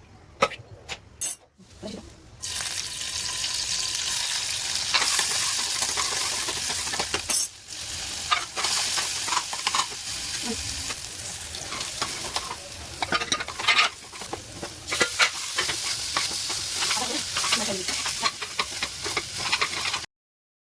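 Maggi instant noodles stir-frying in a hot pan: a steady sizzle with a spatula repeatedly clicking and scraping against the pan. A few sharp knocks come in the first couple of seconds before the sizzling starts, and the sound cuts off suddenly near the end.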